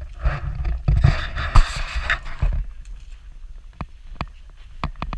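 Wind rumble and handling noise on a hand-held action camera with crunching footsteps on volcanic gravel for the first two and a half seconds, then a few sharp separate knocks near the end.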